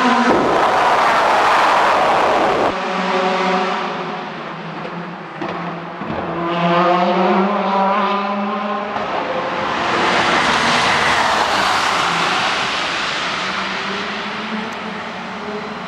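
Le Mans prototype race cars passing at speed on the circuit, the engine note swelling and fading as they go by, with a second loud pass about halfway through.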